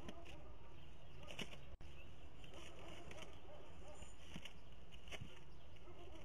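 Steady low background noise from a falcon nest camera's microphone, with faint scattered clicks and rustling as young falcons shift about on the nest sticks. The sound cuts out for an instant just under two seconds in.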